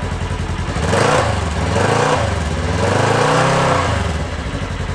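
Polaris RZR side-by-side's engine revving: the pitch climbs about a second in, drops back, climbs again around three seconds and falls off near the end.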